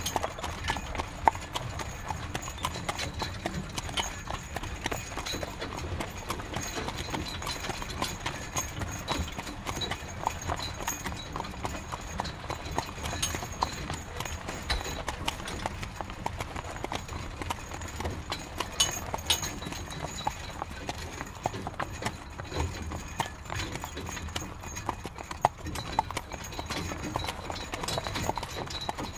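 Horse-drawn carriage on the move: the horse's hooves clip-clopping in a steady, continuous stream of hoof strikes.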